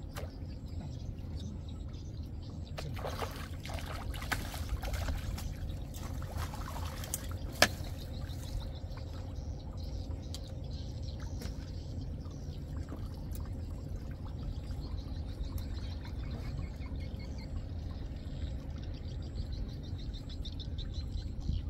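Water trickling and dripping at the pond edge, with a few small clicks and taps about three to eight seconds in, over a steady low rumble.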